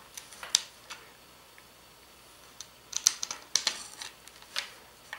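Light clicks and taps of small printed parts and M3 screws being handled and pressed into a slot on a laser-cut 3D-printer frame plate. The clicks come scattered, with a busier cluster about three to four seconds in.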